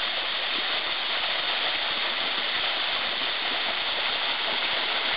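Small waterfall pouring down a rock face into a shallow pool: a steady rushing splash of falling water.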